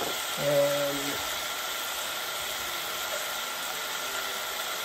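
Onions and cherry tomatoes sizzling steadily in hot oil in a pan on high heat. A short hummed voice sound comes about half a second in.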